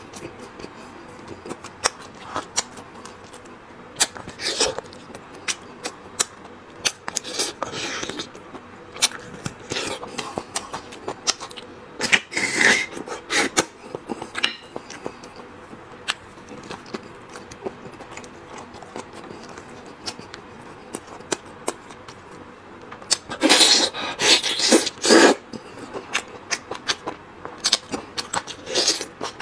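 Close-miked eating sounds of a man chewing and eating braised bones: wet mouth clicks and lip smacks throughout, with loud sucking and slurping bursts about twelve seconds in and again about three quarters of the way through.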